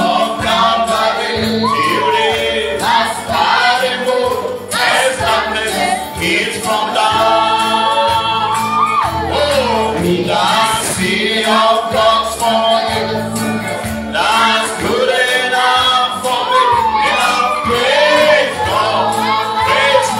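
Gospel worship music: voices singing over steady instrumental accompaniment.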